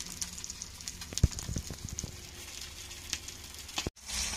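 Masala-coated fish frying on a flat griddle: a low sizzle with scattered crackles, and one sharp knock of the metal spatula on the pan about a second in.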